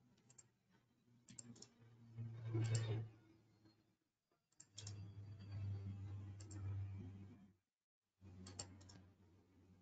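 Faint computer mouse clicks, a few at a time and often in quick pairs, as lines are placed in a CAD drawing. A faint low hum comes and goes between them.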